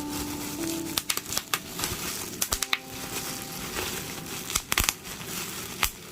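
Bubble wrap being popped by hand: a string of sharp pops, some in quick clusters, over the crinkling of the plastic sheet.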